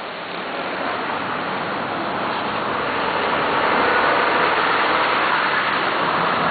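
A quad running, a steady noisy rumble that grows louder over the few seconds.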